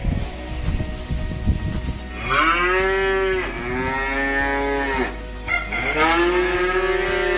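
A calf mooing: two long calls, the first starting about two seconds in and the second following less than a second after it ends.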